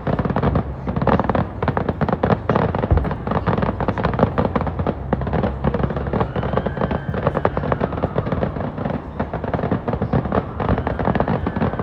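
Fireworks going off in a dense, continuous barrage of crackling and popping, with a heavier boom about three seconds in.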